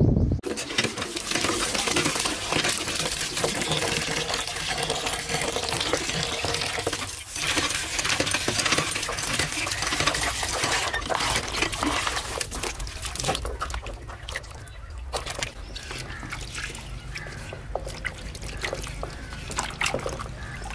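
A thin stream of water splashing into a plastic tub of long cucumbers while hands rub and jostle them in the water, with small knocks and splashes. The pouring is loudest for the first half, then the sound drops to quieter splashing and rubbing.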